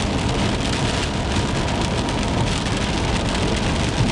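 Heavy rain hitting a vehicle, heard from inside as a dense run of small ticks over the vehicle's steady low road rumble.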